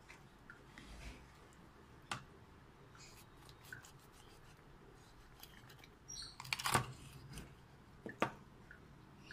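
Kitchen knife cutting into a whole cooked chicken on a cutting board: faint, scattered taps and clicks of the blade on skin and board. A louder cluster of cutting and scraping comes about two-thirds of the way in, with a single sharp tap soon after.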